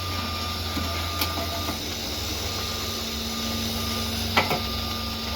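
Excavator's diesel engine running steadily with a low drone, with a sharp knock about four seconds in.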